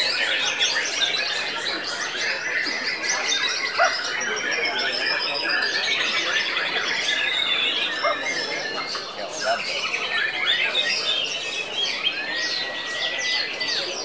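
White-rumped shamas singing at once: a dense, unbroken mix of rapid chattering trills, chirps and whistles, with a clear whistled note that rises and then holds near the end.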